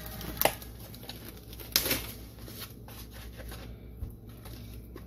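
Raw spare ribs and a foam meat tray being handled, with faint rustling and crinkling and two sharp clicks, about half a second and just under two seconds in.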